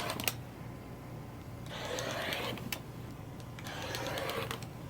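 Quilting fabric being handled: three rustling swishes about a second each, with a few light clicks between them.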